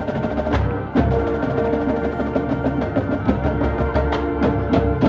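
High school marching band playing, brass and winds holding chords over drums and timpani hits.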